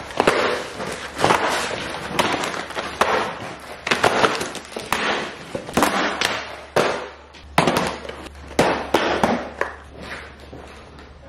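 Cardboard snack boxes and plastic bags being set down and shuffled on a hard countertop: a rapid series of knocks and clatters with crinkling packaging, thinning out near the end.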